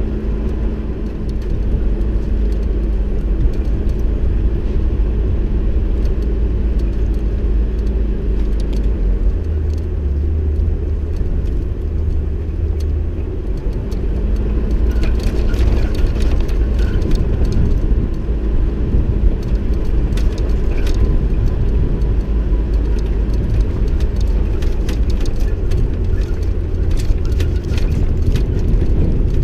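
Vehicle driving on a rough dirt track: steady engine drone and low road rumble, with scattered clicks and knocks, more of them after about halfway.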